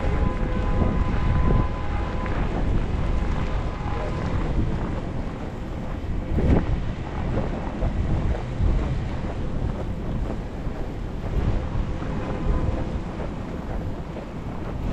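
Strong snowstorm wind buffeting the microphone: a dense, gusting low rumble. A single knock sounds about six and a half seconds in.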